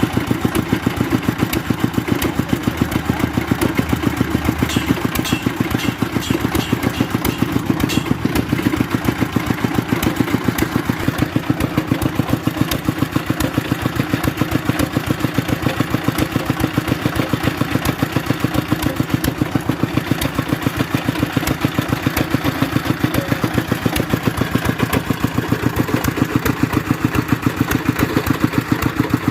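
An engine running steadily at idle-like speed with a fast, even beat, joined about five seconds in by a short run of light ticks.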